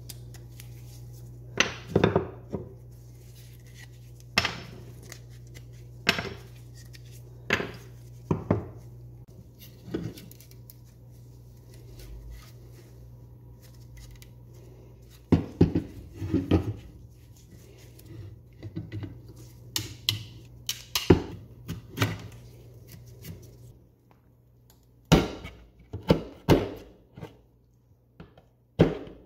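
Irregular sharp wooden knocks and clacks as old doll-bed rails and dowels are handled and knocked apart, over a steady low hum that stops a few seconds before the end. Near the end a flat tool clicks and scrapes against a splintered board edge.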